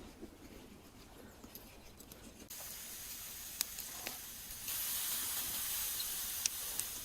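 Food sizzling on a hot cooking surface: a hiss that starts suddenly about two and a half seconds in and grows louder about five seconds in, with scattered pops and crackles.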